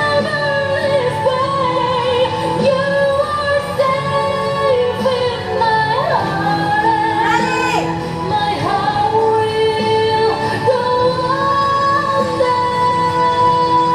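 Pop song with a woman singing a held, gliding melody over a steady instrumental backing.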